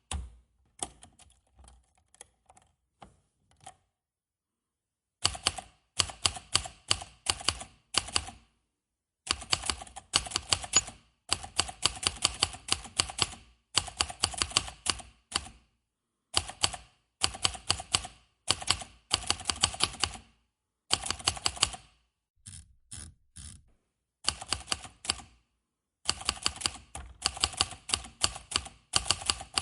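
Manual typewriter being typed on: keys striking in quick runs of clicks, broken by short pauses. The first few seconds hold only a few faint, sparse strikes and a brief silence before the fast typing starts.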